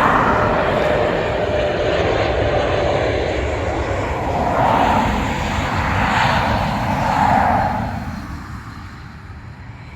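Jet noise from a landing Airbus A220's Pratt & Whitney PW1500G geared turbofan engines, loud with several swells, then fading away after about eight seconds.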